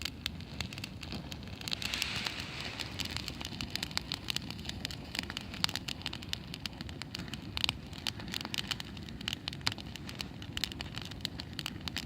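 Campfire of burning wood crackling, with irregular sharp pops over a steady low rumble and a brief hiss about two seconds in.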